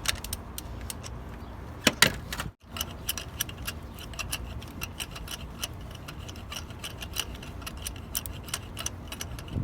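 Hand ratchet clicking in quick, uneven runs while a spark plug is unscrewed with an extension and spark plug socket, with a sharper metallic clack about two seconds in.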